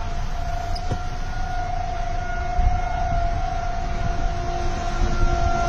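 Outdoor tornado warning siren sounding one steady held tone, with wind rumbling on the microphone underneath.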